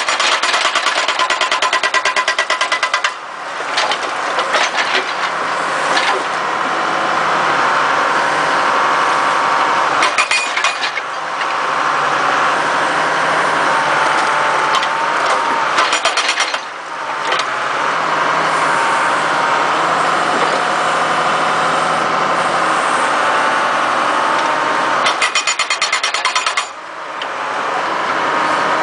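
Case 888 excavator's hydraulic hammer breaking stone in several bursts of rapid blows, the longest at the start, with the excavator's engine and hydraulics running and whining steadily between bursts.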